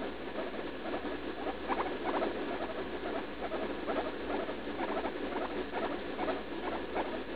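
Guinea pig making a quick run of short squeaks, several a second.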